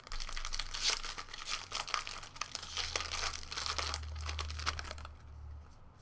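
A 2016 Bowman Draft Jumbo pack's wrapper being torn open and crinkled in the hands, a dense crackling that lasts about five seconds and then dies away.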